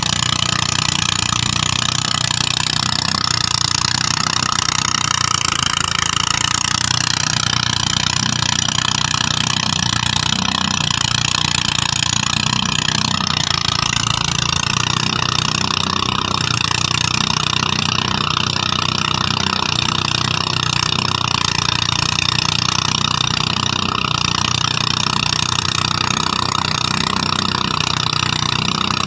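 Rice threshing machine running steadily with a continuous engine drone. Its pitch wavers briefly a few seconds in and again about halfway through.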